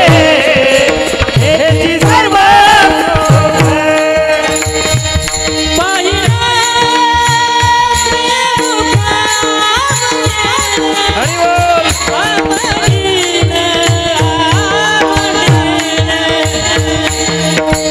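Devotional Marathi kirtan song (a panchapadi) sung by a man's voice with long, gliding held notes, over steady sustained instrument tones and regular hand-drum strokes with jingling percussion.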